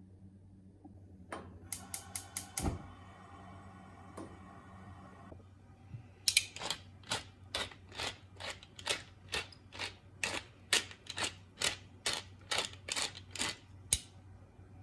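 Pepper mill being twisted over a dish of flour: a brief run of ratcheting grinding strokes about two seconds in, then a longer steady run of about twenty strokes, two to three a second, until near the end.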